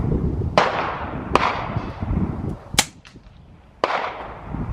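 Four sharp gunshots at a shooting range, spaced about a second apart, most of them trailing off in an echo.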